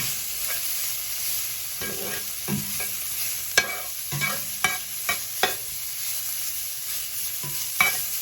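Steak pieces sizzling in a hot frying pan, a steady hiss, while a utensil stirs them, clicking and scraping against the pan about ten times at irregular intervals.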